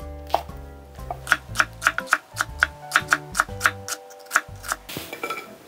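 Chef's knife slicing green Cheongyang chili peppers into rings on a wooden cutting board: quick, even cuts, about four a second, stopping near the end. Background music plays underneath.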